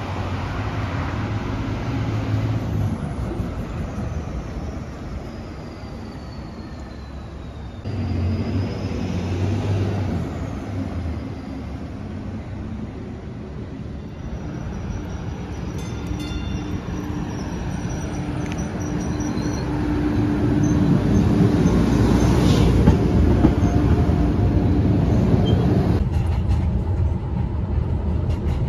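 City street traffic with a bus, then an MBTA Green Line light-rail train running on street-side track, rising to its loudest in the last several seconds. Near the end the sound changes abruptly to the steady running noise inside a moving light-rail car.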